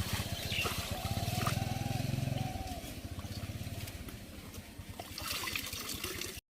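A small engine running steadily with a rapid low putter, which cuts off abruptly near the end.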